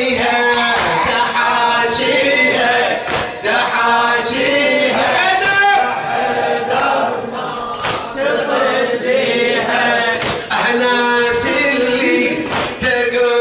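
Men chanting a mourning lament together, led by a reciter, with the congregation's hands slapping their chests in unison every second or two.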